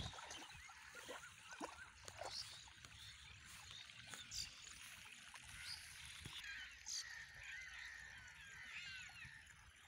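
Faint splashing and sloshing of a dog wading through shallow water, strongest in the first couple of seconds. Thin, high warbling calls join in from about six and a half seconds in.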